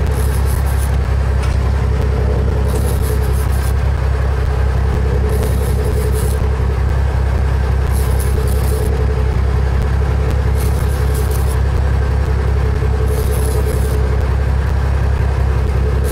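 Fishing boat's engine running steadily with a low drone. A short high hiss comes back about every two and a half seconds.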